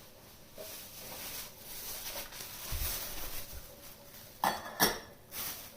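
Handling sounds: a low bump about three seconds in and two sharp clicks about half a second apart near the end, over a faint steady hiss.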